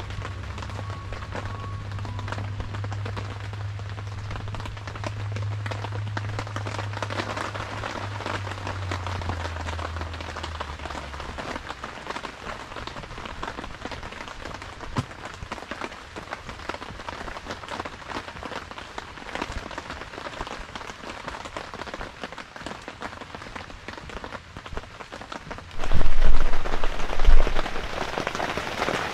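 Heavy rain falling steadily on a hunting ground blind, an even patter throughout. A low drone fades out about ten seconds in, and loud low thumps come near the end.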